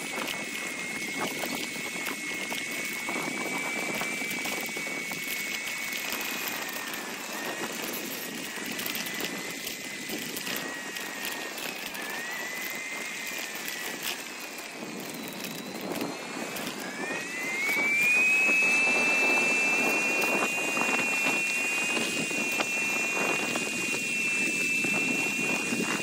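Riding noise from a moving bicycle: a steady high whine that sags in pitch a couple of times, then glides up and grows louder about two-thirds of the way through as speed picks up, over wind and rolling noise.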